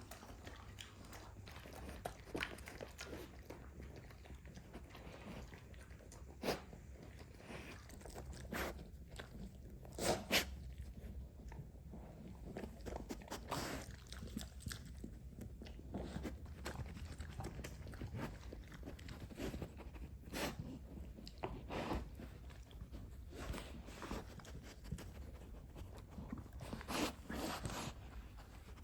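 Dog foraging in a snuffle mat and crunching dry treats: irregular crunches and clicks, with a few louder bites around ten seconds in and near the end.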